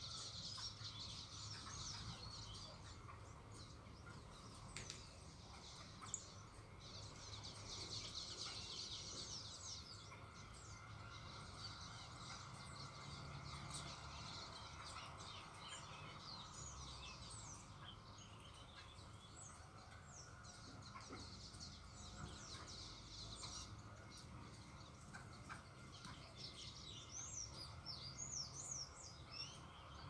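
Small songbirds at a garden feeder chirping and twittering together, a dense chorus that swells and fades in waves, with sharper single calls near the end. A faint low hum runs underneath.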